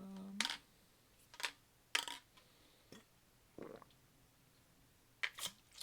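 A short closed-mouth hum, then scattered soft clicks and smacks of someone chewing and tasting a piece of candy.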